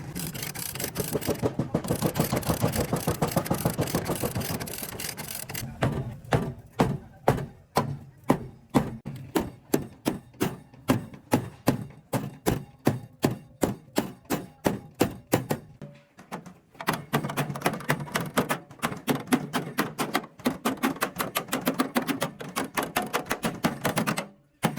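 Hammering on truck body metal: fast, dense strikes at first, then single blows about two or three a second from about six seconds in, then fast hammering again that stops abruptly near the end.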